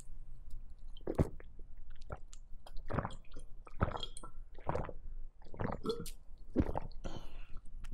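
A person gulping water from a glass jar, a series of separate swallows about one a second, picked up close by a clip-on microphone.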